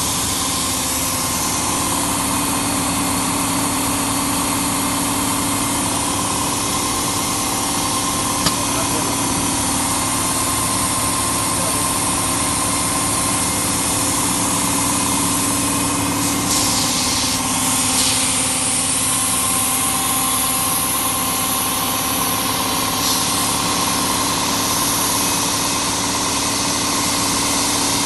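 Miller Weldmaster 112 Extreme seam welder running steadily as its welding head and pressure roller travel along a PVC fabric seam: a constant hum with a dense steady hiss. A single click comes about eight seconds in, and brief hisses around seventeen seconds and again near twenty-three seconds in.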